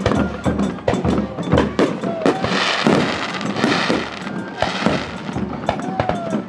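Aerial fireworks bursting in a rapid string of bangs, with a burst of crackling about two and a half seconds in.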